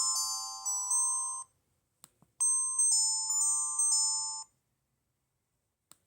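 Ringtones of an LG C1500 mobile phone playing through its small speaker as short bell-like electronic melodies. One tune cuts off about a second and a half in, a couple of faint clicks follow, and the next tune plays for about two seconds before stopping.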